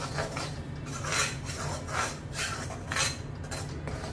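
Steel slotted spoon scraping and stirring thick besan paste roasting in ghee in a metal kadhai: repeated rasping strokes against the pan, about one every half-second to second, over a steady low hum.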